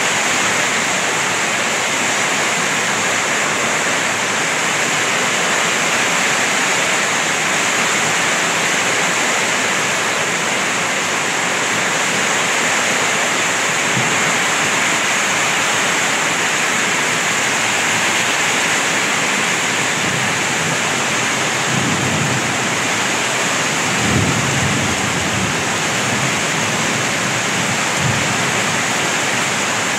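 Heavy typhoon rain pouring steadily on a road and roofs, a dense even hiss, with a few brief low thumps in the last third.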